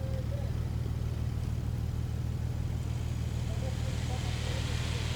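Off-road 4x4's engine running steadily, with a hiss that grows near the end.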